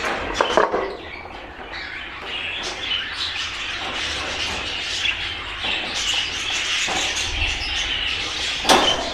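A roomful of budgerigars chattering and chirping continuously, with a few sharp clicks near the start and one near the end.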